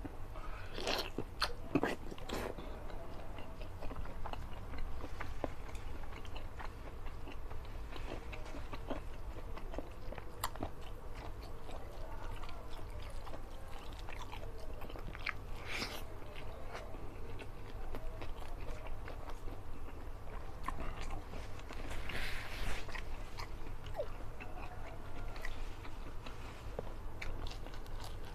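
Close-miked eating: a man chewing and biting curried fish-head meat and rice eaten by hand, with many small mouth clicks throughout and a few louder bursts about a second in, midway, and about three quarters through. A steady low hum runs underneath.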